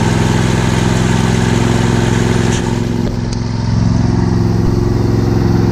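Huskee (MTD) lawn tractor's 22 horsepower Briggs & Stratton V-twin engine running steadily after a jump start, its level dipping briefly about three seconds in.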